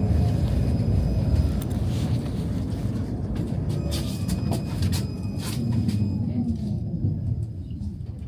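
Tram running on its rails, heard from inside the car: a steady low rumble with sharp clicks and rattles, and a faint high squeal from about four seconds in. The rumble fades over the last couple of seconds.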